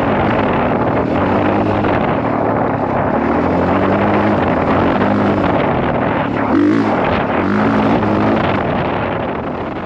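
Honda CRF450R's single-cylinder four-stroke engine running on a trail ride, its pitch rising and falling again and again as the throttle is worked, with wind buffeting the microphone. The sound fades out near the end.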